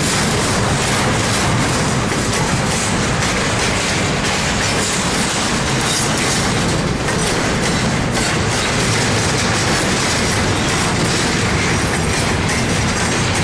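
Norfolk Southern double-stack intermodal freight train rolling past, its loaded well cars making a loud, steady rumble of steel wheels on rail, with wheels clicking over rail joints.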